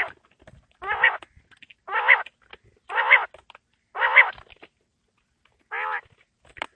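A quail calling: short, wavering calls repeated about once a second, with a pause of a second or so near the end before the calls resume. Faint ticks can be heard between the calls.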